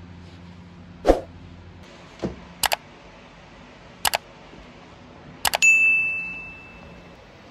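Three quick double mouse clicks about a second and a half apart, the last followed by a bright bell ding that rings out for about a second and a half: the sound effects of a like, subscribe and notification-bell reminder animation. Two softer thumps come before the clicks.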